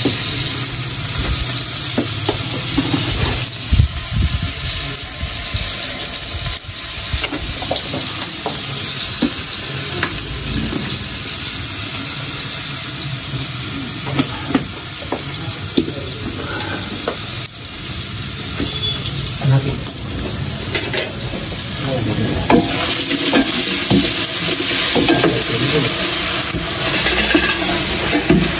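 Diced potatoes frying in a large aluminium pot, sizzling steadily, while a long wooden paddle stirs them and now and then knocks and scrapes against the pot.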